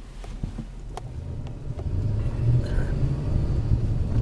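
Car engine and road noise heard from inside the cabin while driving, a low rumble that grows louder about two seconds in.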